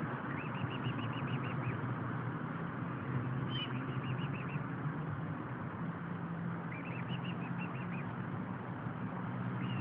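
Mute swan cygnets peeping: short runs of high, thin repeated peeps, about six a second, several times over. A steady low background hum runs under them.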